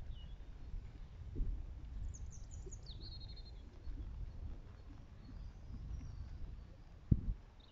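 Outdoor ambience: a steady low rumble, with a small bird chirping a few times about two to three seconds in. There is a single sharp thump near the end.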